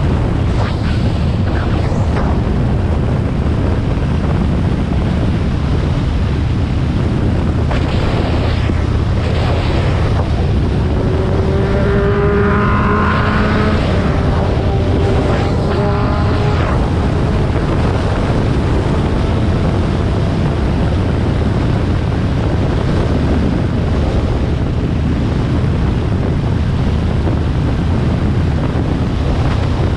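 Harley-Davidson Sportster XL1200R's air-cooled 1200 cc V-twin engine running steadily at expressway speed, with heavy wind rushing over the microphone. A brief whining tone rises over the noise around the middle.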